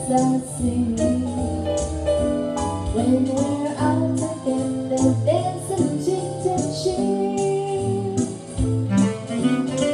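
A woman singing a jazz standard live, accompanied by guitar and keyboard.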